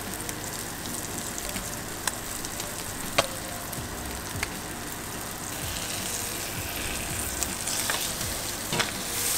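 Fish fillets frying in butter in a pan: a steady sizzle with scattered small pops and crackles. The sizzle grows louder in the second half as a fillet is lifted and turned.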